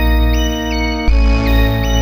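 Lively 80s-or-90s-style music: sustained chords over a steady bass, changing chord about a second in, with a high melody stepping up and down in a short repeating figure.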